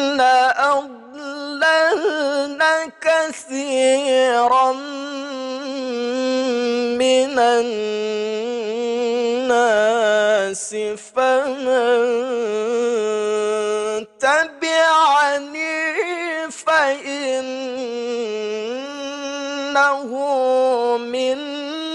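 A male qari reciting the Quran in the melodic tilawah style. One voice holds long, ornamented notes that waver in pitch, with short breaths about a second in and around 11 and 14 seconds.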